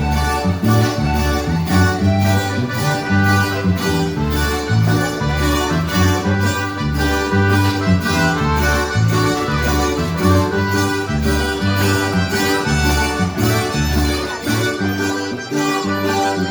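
Instrumental chilena music with a steady beat and repeating bass line.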